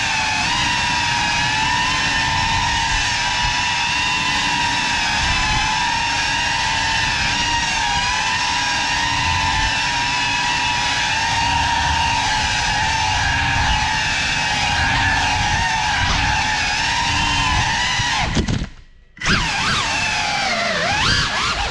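GEPRC Cinelog35 cinewhoop's brushless motors and ducted propellers whining steadily as the drone cruises. About three seconds before the end the throttle is cut and the whine almost drops out for under a second, then comes back with quick rising and falling swings in pitch as the throttle is punched and eased.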